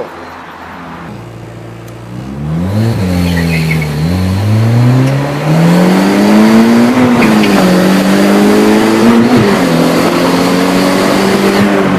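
Car engine accelerating hard, its pitch climbing, dropping back twice as if through gear changes, then holding steady, with road and tire noise.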